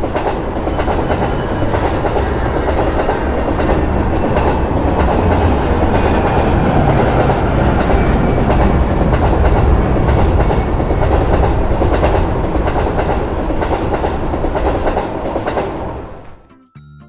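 Train passing over a level crossing: a steady rush of wheel and rail noise with clickety-clack from the rail joints, building quickly at the start and dying away about sixteen seconds in.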